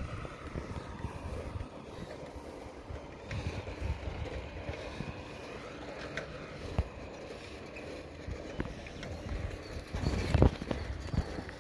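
A bicycle ridden along a paved road, with wind rushing over the handlebar-mounted microphone and the bike and its wire front basket rattling. Louder knocks and clatter come near the end.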